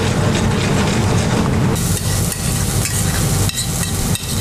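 A steady low mechanical drone in a commercial kitchen. Near the end come a few light clinks of steel pans as diced vegetables are tipped from one pan into a saucepan.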